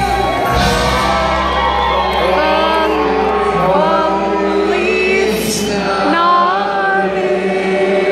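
Live country band playing a Christmas song with singing and acoustic guitars.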